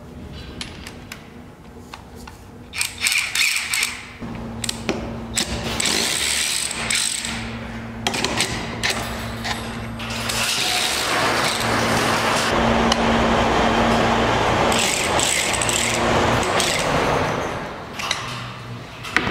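Cordless electric ratchet running in short bursts, then one longer run of several seconds, driving bolts down along a metal rail with a steady motor hum and clicks.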